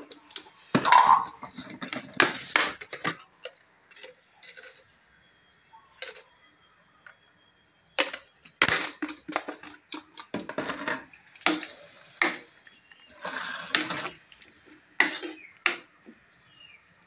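A metal spoon clinking and scraping against a large metal cooking pot of soup while it is stirred and served from, in irregular knocks and clinks.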